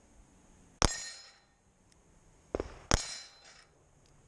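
Two pistol shots about two seconds apart, fired at a steel plate rack, each trailed by a high metallic ringing tail. A softer report comes just before the second shot.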